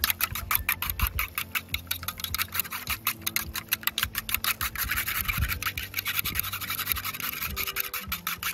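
Metal chopsticks whisking three eggs in a stainless steel cup: rapid, regular clicking of the chopsticks against the metal, blurring into a denser scraping in the middle.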